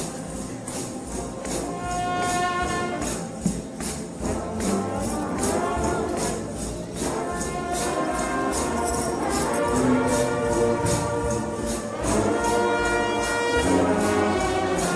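Trombone shout band playing a fast gospel tune in held, swelling chords, with tambourines struck on the beat about three times a second.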